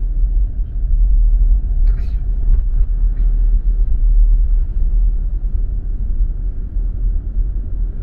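Steady low rumble of a car driving along a road, its engine and tyre noise heard from inside the cabin, with a brief faint sound about two seconds in.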